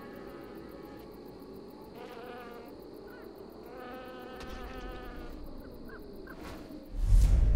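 A wavering, insect-like buzz, then a sudden loud, deep boom about seven seconds in.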